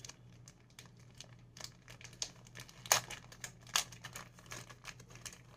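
Small plastic packet crinkling and crackling as it is worked open by hand, with a few sharper crackles about three and four seconds in.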